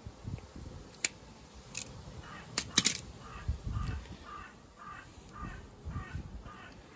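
A few sharp clicks of parts being handled, then a bird calling about nine times in a row, roughly two calls a second, over low thuds of work.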